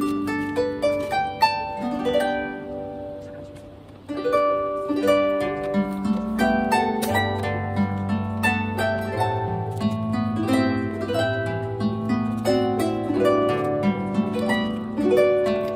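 Solo harp background music: plucked notes ringing over a low bass line. It dies away about three seconds in, and a new phrase starts about four seconds in.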